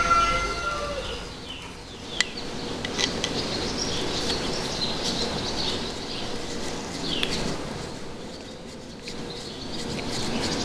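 Birds chirping faintly in short, scattered calls, with a single sharp click about two seconds in.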